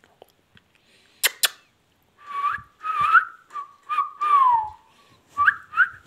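Indian ringneck parakeet whistling a run of clear notes, some gliding up and one longer falling whistle, after two sharp clicks about a second in.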